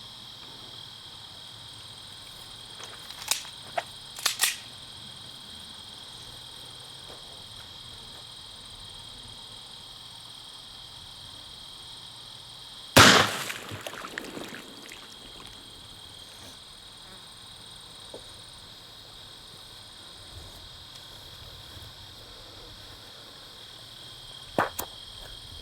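A single 9mm pistol shot of PMC Bronze 115-grain hollow-point ammunition, a sharp crack about halfway through with a short echoing tail. Crickets chirp steadily throughout, and a few small clicks come before the shot.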